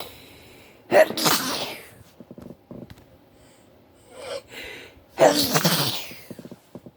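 Two loud sneezes in a sneezing fit, about four seconds apart, each a sudden burst that trails off over most of a second, with softer short sounds between them.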